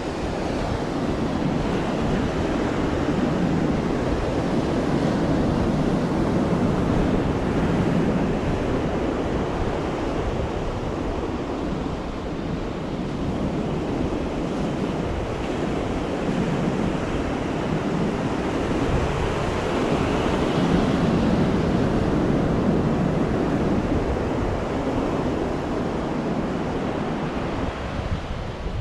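Sea surf on a beach, waves washing in with a steady hiss that swells and eases every several seconds. Wind rumbles on the microphone underneath.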